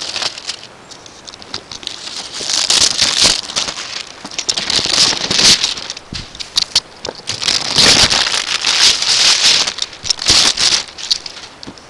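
Plastic shrink wrap crinkling as it is pulled off a cardboard box, in loud, uneven bursts.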